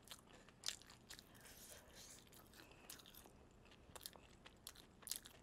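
Faint, irregular crackles and crunches of crispy fried chicken being eaten: the battered crust is chewed and the meat is pulled off the bone by hand.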